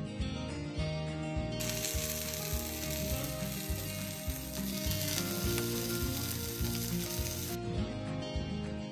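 Breakfast sausages sizzling in a pan on a portable butane camp stove. The sizzle comes in about a second and a half in and cuts off about a second before the end, over background music.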